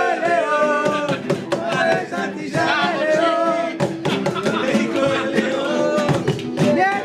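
Acoustic guitar strummed over a hand-slapped cajón beat, with men singing along in a live group performance.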